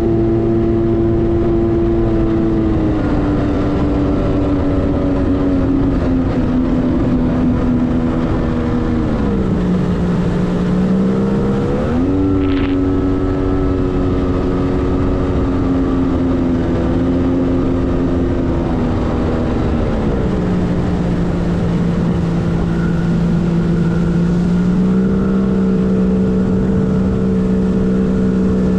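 Arctic Cat TigerShark personal watercraft's two-stroke engine running under way, the throttle eased and opened several times. The pitch steps down a few seconds in, dips deeply about ten seconds in, then climbs sharply back. It drops again past the midpoint and lifts a little near the end.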